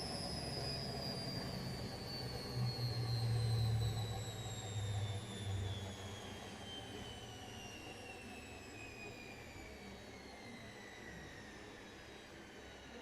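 Gorenje washing machine coming down from its spin: the motor's whine falls steadily in pitch as the drum slows. A low rumble swells for a few seconds near the start, then fades, and the whole sound grows quieter.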